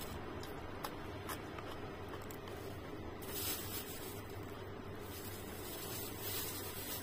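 A person chewing food with the mouth closed, with a few small clicks early on and two short hissing bursts, one about three seconds in and one near the end, over a steady low hum.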